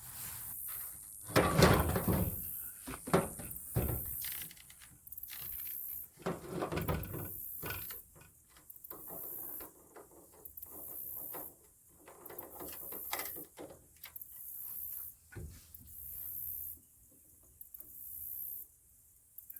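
Clunks, knocks and scraping from handling a gas can and a new two-stroke string trimmer while it is fuelled with 50:1 gas-oil mix for the first time. The loudest knocks come about two seconds in and again around three to four seconds. Under it all runs the steady, pulsing high chirr of insects.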